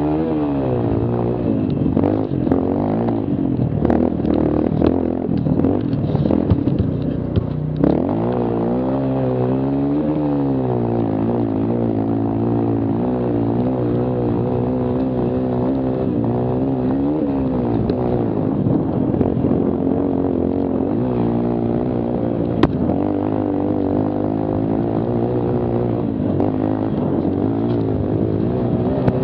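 A mini quad's small engine running hard, its pitch rising and falling as the rider accelerates and backs off, with a few long up-and-down sweeps in revs. Scattered knocks and rattles come through from rough ground, with one sharp knock about two-thirds of the way through.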